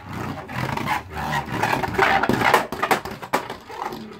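Beyblade Burst spinning top (Solar Sphinx S5) whirring and grinding as it spins and travels across a plastic Beyblade stadium floor, with a few sharper clicks. The sound fades near the end as the top loses speed.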